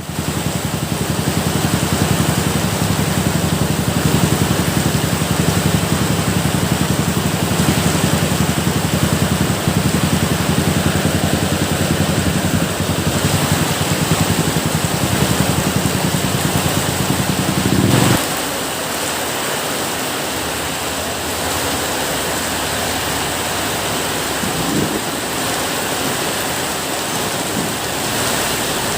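Steady rain, an even hiss, over a low rumble that cuts off suddenly about eighteen seconds in, leaving the rain alone.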